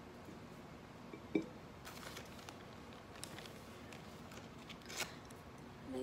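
Handling noises as baked pastries are taken from a zip-top plastic bag: faint crinkles of the plastic bag, with one short knock about one and a half seconds in.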